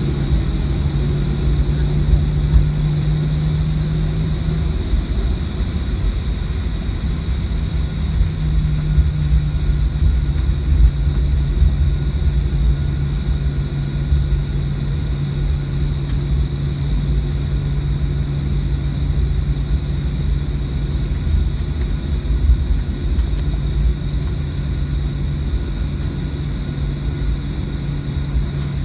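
Cabin noise of a Boeing 737-800 taxiing, heard from a window seat beside the wing: its CFM56-7B engines at idle under a steady low rumble, with a steady hum and a thin high whine. The hum drops away for a couple of seconds about five seconds in.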